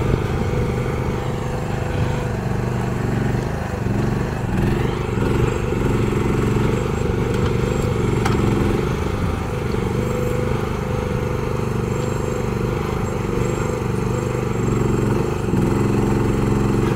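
FF Industrial FF12 mini excavator's small engine running steadily while the machine digs, its pitch dipping briefly twice.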